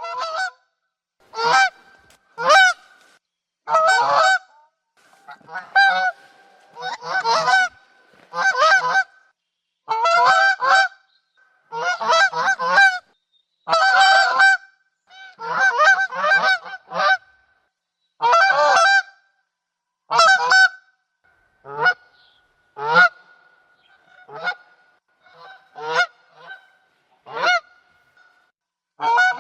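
Geese honking: loud calls coming in short groups every second or two, some doubled or run together, with a faint steady tone humming between them.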